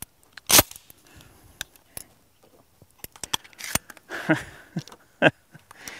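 Buckshot shells being handled and loaded into a Remington Tac-14 12-gauge pump shotgun: scattered clicks and knocks of shells and metal parts, the loudest about half a second in.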